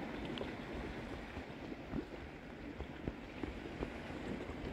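Quiet harbour ambience: a low steady rumble of wind on the microphone and water lapping at the pier, with a few faint ticks.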